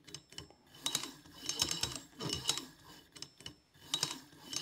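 Stepper motor turning a combination safe lock's dial in short repeated moves. Clusters of sharp clicking from the lock mechanism come roughly every second, with brief falling motor whirs between them.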